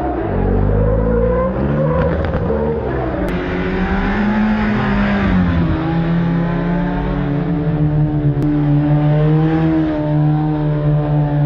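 Drift car engine revving up and down for the first few seconds. Then a stunt motorcycle's engine holds a steady note while it rides a wheelie.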